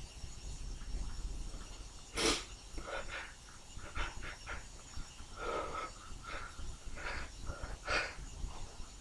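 A person sneezing: one sharp sneeze a couple of seconds in and another near the end, with shorter sniffs and breaths between, over a low background rumble.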